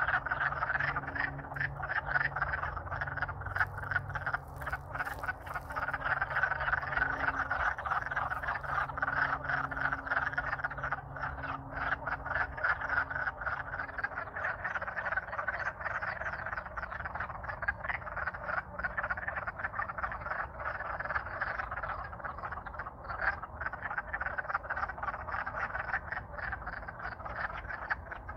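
A dense chorus of wood frogs, many calling over one another in a loud, unbroken din: males courting in a breeding pond after the spring thaw.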